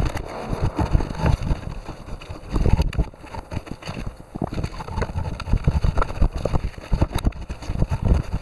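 Cloth sleeve of a work suit rubbing and bumping against the microphone, giving irregular low thumps and rustling.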